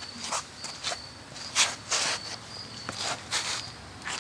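Cricket chirping: short high chirps at one steady pitch, repeating every half second to a second, with several brief scuffing or handling noises in between.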